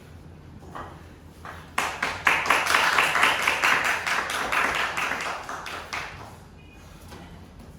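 Applause from a small crowd: many hands clapping, starting about two seconds in and dying away about four seconds later.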